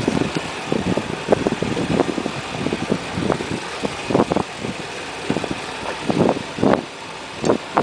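Outboard motor running on a small open skiff through choppy water, with uneven slaps and buffets about once or twice a second over its steady noise.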